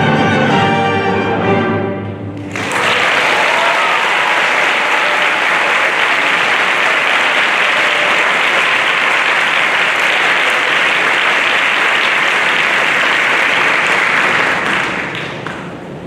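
A symphony orchestra plays the last notes of a piece, then about two and a half seconds in the audience breaks into applause that lasts about twelve seconds and fades away near the end.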